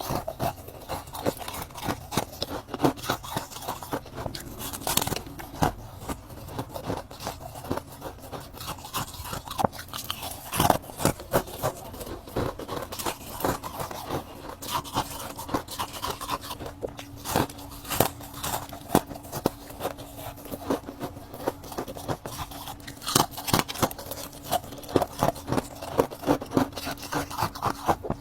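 Ice being bitten and crunched between the teeth: a steady run of sharp, irregular cracks and crunches, close to the microphone.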